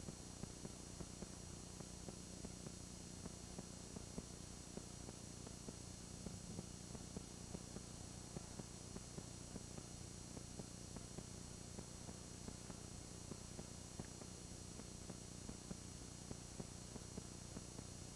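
Steady low hum and hiss of an old videotape soundtrack, with frequent faint crackles and no distinct event.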